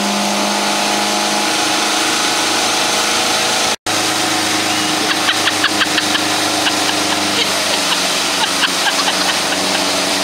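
Motorboat engine running at speed under a steady rush of wind and water, with a brief break about four seconds in. A scatter of short taps sits over it in the second half.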